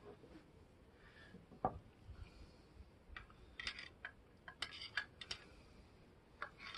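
Faint, scattered metallic clicks and clinks from a slip-on exhaust muffler and its steel clamp being handled and worked by hand. There is one click early, then a quick run of clicks about three to five seconds in.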